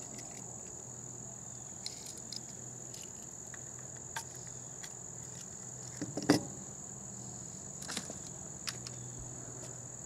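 Steady chorus of crickets, a continuous high-pitched drone. Over it, a few short clicks and knocks from handling the percussion muzzleloader, the loudest about six seconds in.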